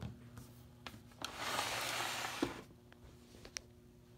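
Low steady hum of an electric animated Christmas elf figure's motor. A few light clicks sound along with it, and a rustle of handling runs from about one and a half to two and a half seconds in.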